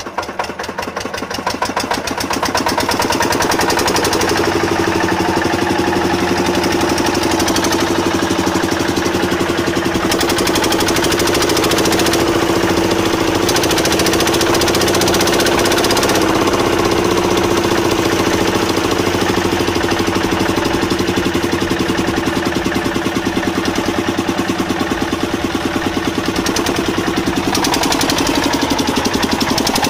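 Single-cylinder stationary diesel engine, just started and smoking, picking up speed over the first two seconds, then running steadily with a fast, even knocking beat.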